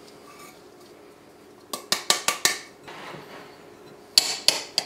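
A metal spoon clinking and scraping against a glass mixing bowl, working a crumbly flour, butter and cheddar mixture. There is a quick run of clinks about two seconds in and another shorter, brighter run near the end.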